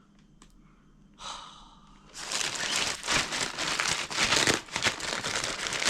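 A sigh, then plastic packaging crinkling and rustling as it is handled, dense and continuous from about two seconds in.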